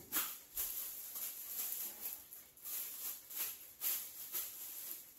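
Clear plastic wrapping rustling and crinkling in irregular bursts as an air rifle sealed in it is lifted and handled.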